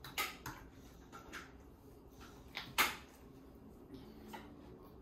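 Homemade slime being squeezed and stirred by hand in plastic bowls: faint, scattered sticky clicks and pops, the loudest a little before the three-second mark.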